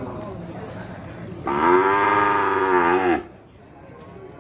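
A cow mooing once: a single drawn-out moo of nearly two seconds, starting about a second and a half in, its pitch rising at the start and dropping as it ends.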